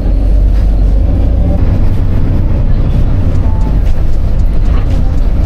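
City street noise dominated by a loud, steady low rumble, like passing traffic.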